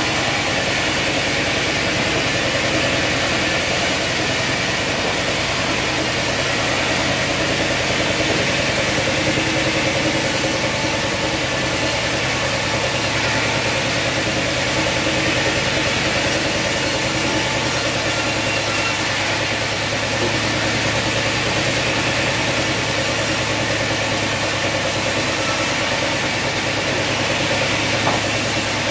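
Vertical band sawmill running steadily, its blade cutting a log and a squared timber as they are fed through.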